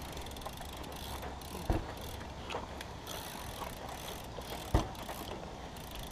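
BMX bike rolling with its rear hub ratchet ticking. Two sharp thumps as the tyres come down from small hops, one about two seconds in and a louder one near five seconds in.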